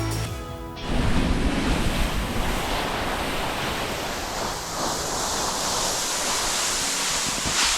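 Steady rushing noise of skis sliding over snow on a downhill run, mixed with wind buffeting the microphone. Background music cuts off about a second in.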